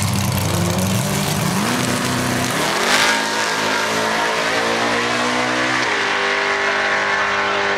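1994 Ford Mustang GT's V8 launching hard off the drag strip start line, its pitch climbing through the gears with upshifts about three and six seconds in.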